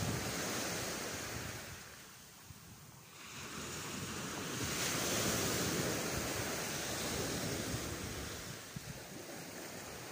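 Small waves breaking and washing on a shingle beach, the surf swelling and fading, softest about two seconds in, with wind buffeting the microphone.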